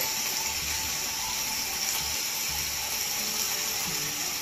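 Chicken livers, gizzards and onion frying in butter in a pan over a low gas flame, giving a steady soft sizzle.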